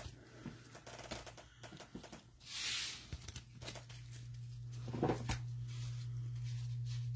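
Trading cards and cardboard packaging being handled: small clicks and taps, with a brief rustle about two and a half seconds in, over a steady low hum.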